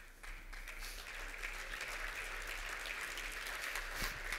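Audience applauding in a conference hall, faint and even.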